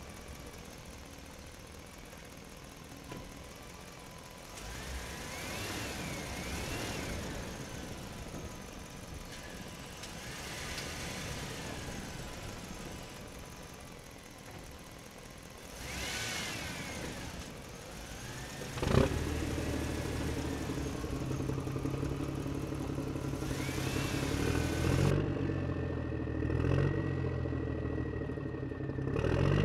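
An engine running steadily; about two-thirds in a sharp click comes and the running turns louder and steadier, with a low hum and its overtones.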